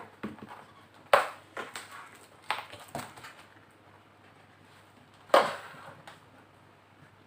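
Crunching bites into pizza, close to the microphone: a handful of sharp crunches, the loudest about a second in and again past five seconds.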